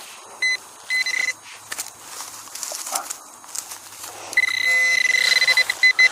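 Handheld metal-detecting pinpointer giving a high-pitched electronic beep: two short beeps in the first second, then a long tone from about four seconds in that pulses quickly as it closes on a buried target. Soft scraping and rustling of soil and stubble is heard between the beeps.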